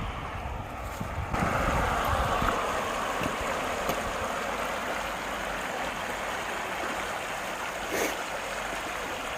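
Running water rushing steadily, as the tide drains out, getting louder about a second in. A few low thumps come in the first second, and one brief sharp sound comes near the end.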